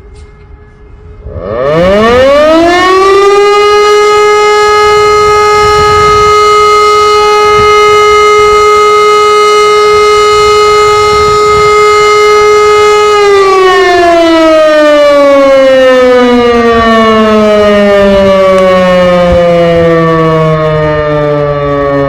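Public warning siren sounding the German fire-alarm signal. It winds up quickly about a second in and holds one steady loud tone for about ten seconds. It then winds down slowly in a long falling glide: the end of the first of the signal's three interrupted 12-second tones.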